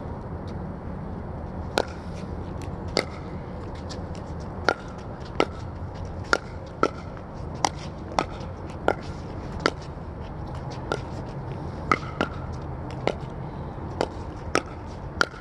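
Pickleball rally: a run of about seventeen sharp pops as paddles strike the hollow plastic ball and it bounces, coming every half second to a second, quicker in short exchanges, over a steady low rumble.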